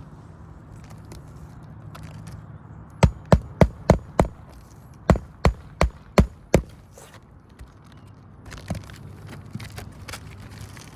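Hammer driving roofing nails through an asphalt shingle on a roof deck: two quick runs of about five sharp blows each, a second apart.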